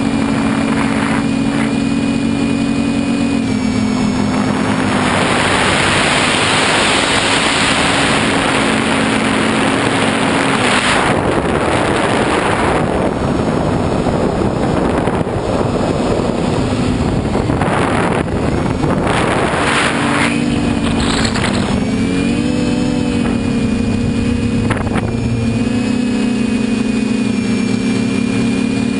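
TBS Discovery quadcopter's brushless motors and propellers buzzing, heard from a camera mounted on the craft. The pitch of the buzz shifts up and down with throttle. A rushing noise of air swells over it for several seconds about a fifth of the way in, and again briefly later.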